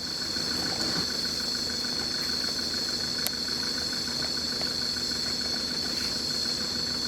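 Vehicle engine idling steadily with a fast even pulse, under a loud steady high-pitched drone.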